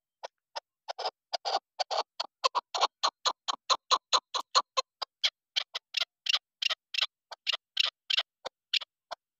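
Female chukar partridge calling: a long run of short, sharp clucks that starts sparsely and quickens to about three or four a second, stopping near the end.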